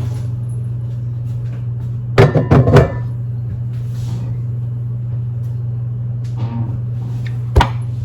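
A steady low hum throughout, with a short clatter of several knocks about two seconds in and a single sharp knock near the end, like household objects being handled and set down.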